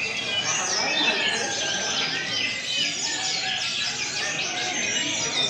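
Many caged sikatan rimba dada coklat (SRDC) jungle flycatchers singing at once in a songbird contest, a dense overlapping chorus of quick chirps, trills and whistles with no letup.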